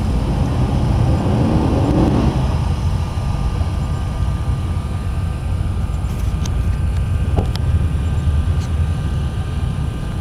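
Steady low rumble of a car engine idling, heard from inside the cabin, swelling briefly about two seconds in, with a few light clicks later on.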